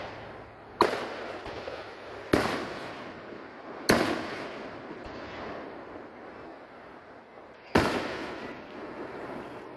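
Fireworks bursting overhead: four sharp booms, the first three about a second and a half apart and the fourth after a longer gap, each trailing off in a rolling echo.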